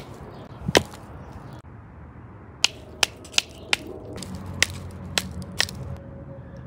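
Sharp snaps at irregular spacing, about eight in all, with a faint low hum coming in about halfway through.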